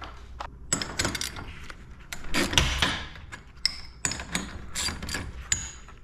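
Metal garage door torsion hardware being handled: a run of irregular clicks, clinks and knocks, some with a brief metallic ring.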